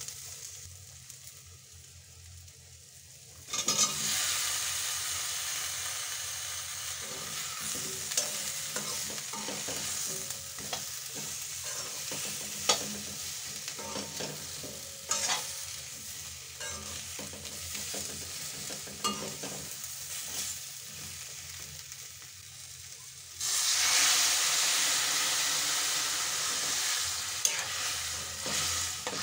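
Tomato-onion masala and drumstick pieces frying in a metal kadai, stirred with a metal spatula that clicks and scrapes against the pan. The sizzle jumps suddenly louder about three and a half seconds in and again about 23 seconds in.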